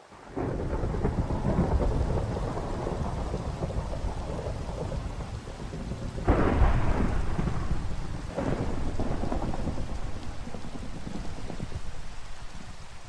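Thunderstorm: thunder rumbling over steady rain. It starts suddenly about half a second in, has two sharper cracks about six and eight seconds in, and fades near the end.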